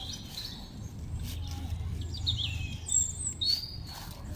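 Birds chirping in short falling notes, several in the second half, over a low steady background rumble, with a few brief clicks.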